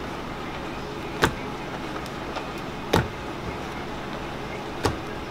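Hot hard candy being pulled on a wall-mounted metal candy hook to work air into it: three short knocks about every couple of seconds as the candy rope is thrown over and worked against the hook, over a steady hum.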